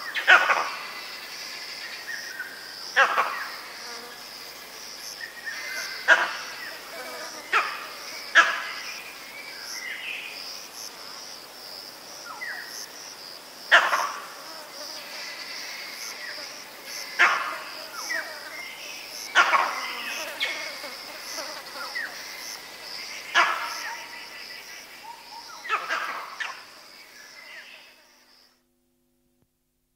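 Vervet monkey giving leopard alarm calls, mostly from one animal: about a dozen sharp, loud barks spaced one to five seconds apart. A steady high-pitched insect drone runs behind them, and the recording cuts off near the end.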